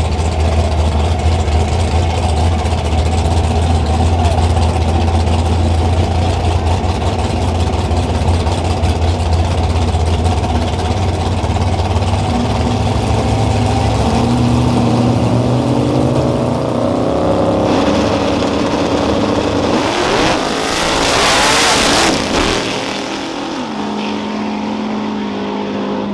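Two drag-racing cars' engines idling deep and loud at the starting line, revs then rising for several seconds. About twenty seconds in they launch at full throttle in a loud burst that lasts a couple of seconds, then the sound drops off as the cars pull away down the track.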